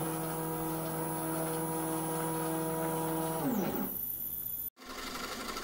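Stepper motors of a homemade CNC scroll-saw rig driving its axes: a steady whine made of several tones. About three and a half seconds in the pitch glides down as the move slows, and near the end it cuts off abruptly, leaving a quieter hum.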